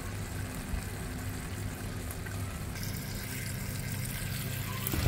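A pot of laing simmering over a steady low hum, then, a little over halfway, tap water running into a stainless-steel sink onto chili peppers, growing louder near the end.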